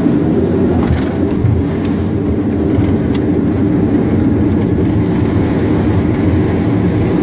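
Aircraft engine and airframe noise heard inside the cockpit as the plane rolls down the runway after landing: a loud, steady deep rumble, with a few faint ticks in the first few seconds.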